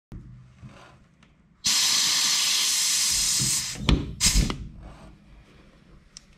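Compressed air blasting from an air nozzle: one steady hiss of about two seconds that cuts off sharply, then two short blasts about half a second apart.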